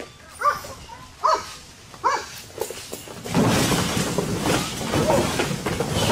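A dog barking three times, a little under a second apart. Then, from about halfway, cardboard boxes crashing and rustling without a break as a dog plows through a pile of them.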